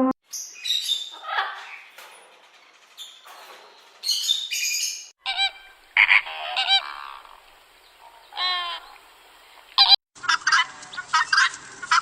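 Poultry calling: a string of short, high-pitched honks and squawks, cut abruptly about five seconds in and again about ten seconds in, where a fast, dense run of calls begins.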